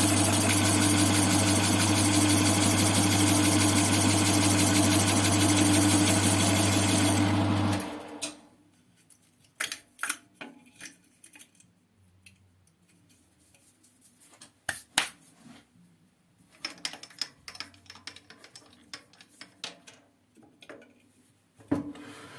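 CJM280 benchtop metal lathe running steadily with a strong hum, then switched off about eight seconds in. After it stops, scattered light clicks and clinks of metal parts and tools being handled.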